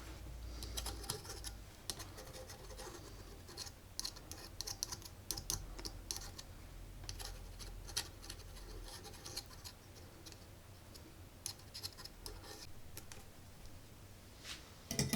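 Faint, irregular scratching and light clicks from small metal parts and tools being handled at a workbench, likely the battery terminal being worked on after tinning, with a louder knock near the end.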